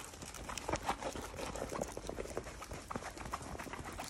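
Rustling and crinkling of a rolled diamond-painting canvas and its wrapped drill packets as they are unrolled and handled, with many small irregular ticks.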